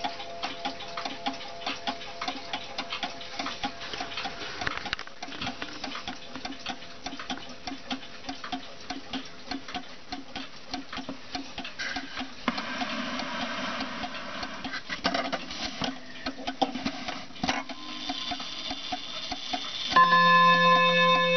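Juba mantel clock's pendulum movement ticking steadily. About a second before the end the clock begins to strike: a chime rings out with several clear steady tones, louder than the ticking.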